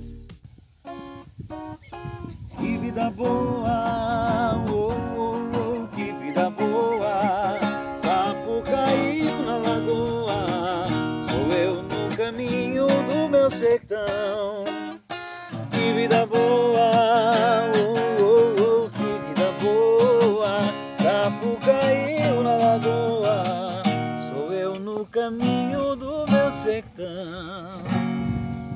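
Acoustic guitar played with a man singing along, a wavering melody over the chords. It fades in over the first couple of seconds and breaks off briefly about halfway before going on.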